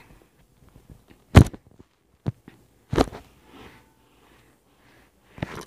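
Handling noise from a handheld recording device: four or five sharp knocks and rubs of fingers against it near the microphone, the loudest about one and a half seconds in, with faint rustling between.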